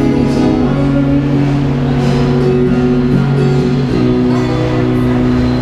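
Yamaha acoustic guitar amplified through a Roland Cube Street EX, playing held chords that ring steadily over a sustained low note.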